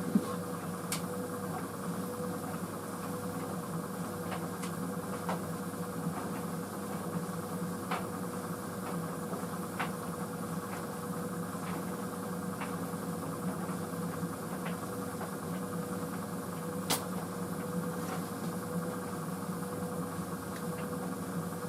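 White Knight CL43 tumble dryer running on high heat: a steady motor and drum hum with a constant tone, dotted with irregular light clicks, one sharper about seventeen seconds in.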